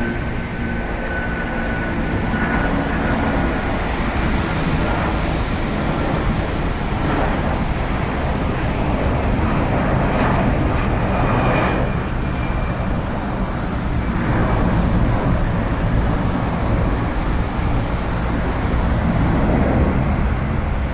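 Jet airliner's engines running at climb power just after takeoff: a steady, heavy rumble that swells and fades slowly, with a faint high whine that slowly drops in pitch.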